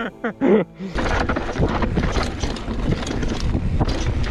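Wind buffeting the microphone while a mountain bike rattles and clatters over rough downhill trail. It starts about a second in, a dense rush of noise full of small knocks.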